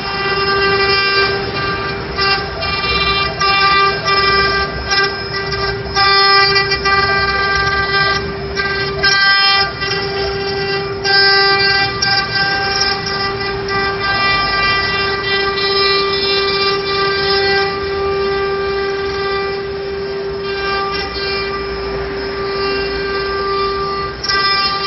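Multi-head CNC wood-carving router with its 1.5 kW spindles running near full speed, giving a steady high whine. Under the whine is the rougher, uneven noise of the bits cutting wood, which swells and drops every second or so.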